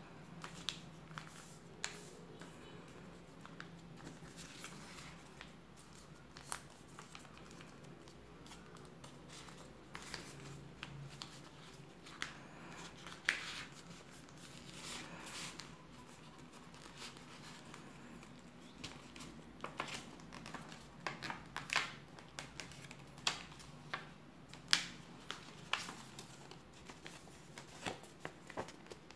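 A sheet of paper being folded by hand: irregular rustling with sharp crackles and taps as the creases are pressed flat, coming more often in the last third.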